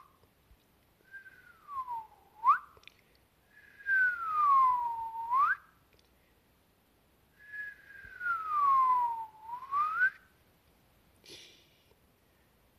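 A person whistling three times, each whistle a falling tone that swoops back up at the end, the last one the longest.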